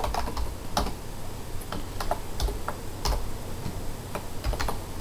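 Typing on a computer keyboard: short, irregular keystroke clicks, about three or four a second, as a command is entered.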